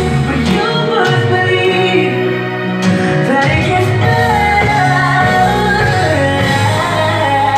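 Recorded gospel song playing loudly: a woman singing lead over a band accompaniment.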